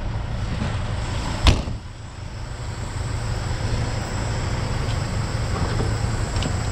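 A vehicle engine idling steadily, with one sharp knock about a second and a half in.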